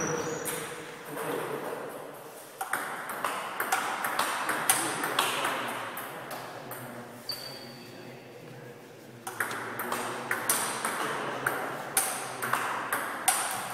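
Table tennis balls clicking off bats and tables in quick rallies, a string of sharp, irregular clicks with a short lull about halfway through.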